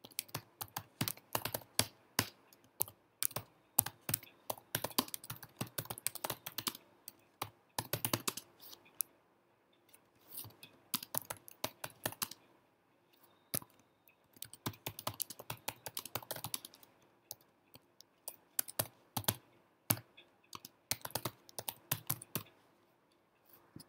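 Typing on a computer keyboard: runs of quick key clicks, broken by a few brief pauses.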